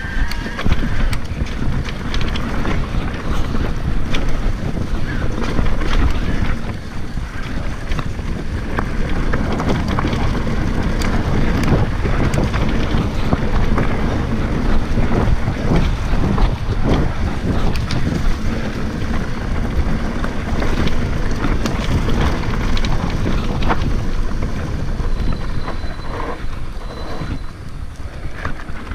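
Electric mountain bike ridden along a trail: wind rushing over the microphone, tyres rumbling on dirt and the bike rattling, with many short sharp knocks over bumps.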